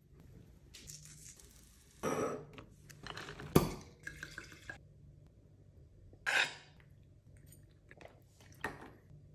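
Tableware handling: a metal utensil picking at crisp roast potatoes in a bowl, with crunches and a sharp clink of metal on the dish, then a knife and fork working on a slate board. These come in separate short bursts, the loudest being the clink about three and a half seconds in.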